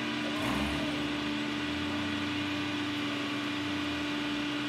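Vehicle engine idling with a steady hum; a deeper low rumble comes in about half a second in and fades shortly before the end.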